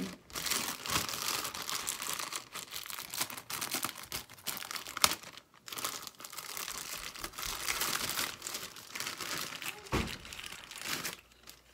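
Packaging crinkling and rustling as it is handled and opened, in an irregular run with a few short breaks, a sharp click about halfway and a dull thump near the end.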